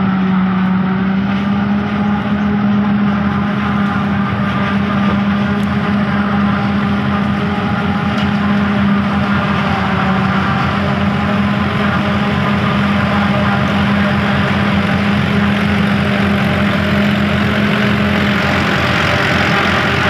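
New Holland self-propelled forage harvester cutting and chopping standing maize for silage, a loud steady machine drone with a constant hum, mixed with the engines of the tractors pulling trailers alongside. The higher, hissing part grows a little brighter near the end as the machines come close.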